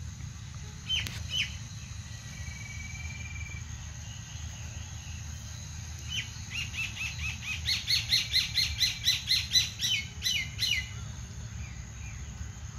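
A bird calling: two short calls about a second in, then from about halfway a rapid run of short, sharp notes, about six a second, that swells louder and breaks off a couple of seconds before the end.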